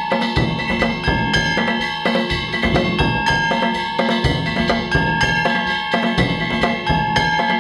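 Danjiri hayashi festival music: taiko drums beating a fast, steady rhythm with small hand gongs ringing over them.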